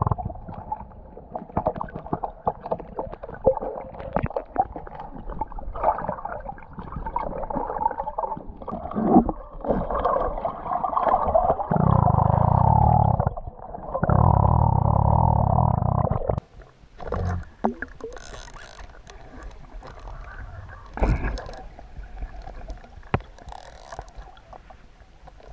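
Muffled rumbling and gurgling of water heard through an action camera held underwater. Two louder steady rushes, of about one and two seconds, come a little past the middle.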